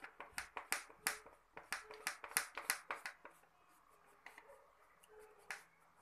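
Wax crayon scribbling quickly back and forth on paper over a hard board: a run of quick scratchy strokes, about three a second, that thins out to a few single strokes after about three seconds.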